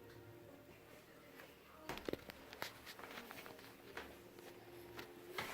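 Faint steady room hum, then from about two seconds in a scatter of light clicks and knocks, as of things being handled.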